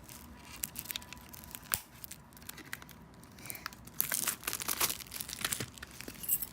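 Plastic shrink-wrap being torn and peeled off a sealed CD album case, with irregular crackling and crinkling that is loudest about four seconds in.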